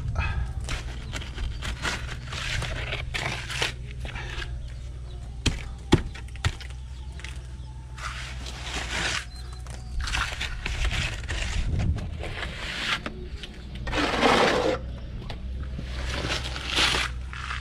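Trowel scraping and spreading cement plaster over a wall patch in irregular strokes, with a few sharp knocks and one louder rough scrape near the end, over a steady low hum.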